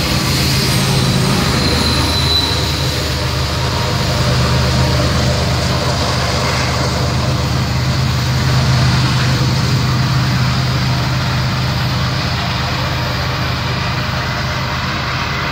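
Norfolk Southern diesel locomotive at the rear of a freight train running past and away, its engine a steady low drone over rolling wheel and rail noise. A brief high wheel squeal comes about two seconds in, and the sound slowly fades toward the end as the train rounds the curve.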